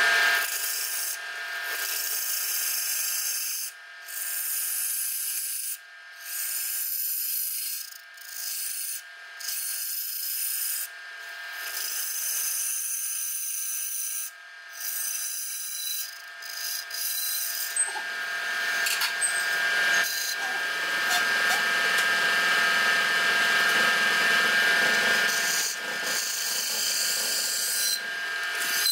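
Wood lathe running with a steady motor whine while a hand-held chisel scrapes across the face of a spinning wooden disc, a dry cutting hiss. The cutting breaks off several times in the first half, then runs fuller and steadier in the second half.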